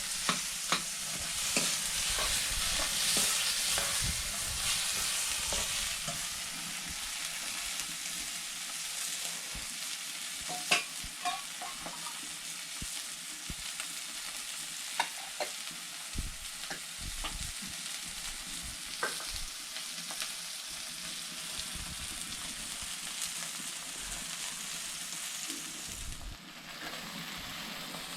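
Potato curry frying in a pan: a steady sizzle with scattered clinks and scrapes of a spoon stirring it.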